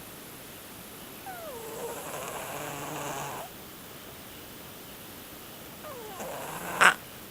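Siamese cat snoring in deep sleep: a whistling breath that falls in pitch turns into a rasping snore about two seconds long, then near the end another falling whistle ends in a brief loud snort.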